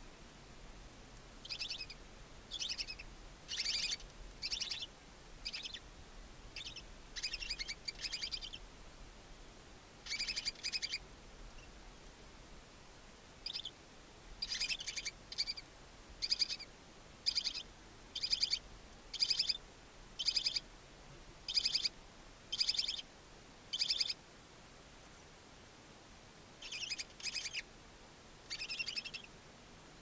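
Barn owl calls: a run of short, rasping, chittering calls, about one a second, in bouts with a couple of brief pauses.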